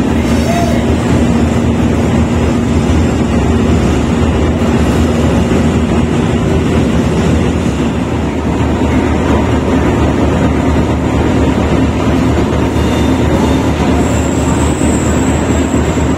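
RGE-24 class diesel-electric locomotive running as it hauls a passenger train past at close range: a loud, steady engine hum under rail and wheel noise. A thin high squeal joins in for a moment near the end.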